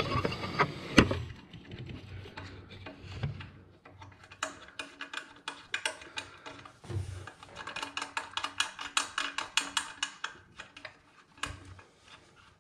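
Small clicks and knocks of a threaded bushing being screwed in by hand on a thermostatic shower mixer body. There are a couple of louder knocks in the first second, then a long run of quick clicks, several a second, through the middle.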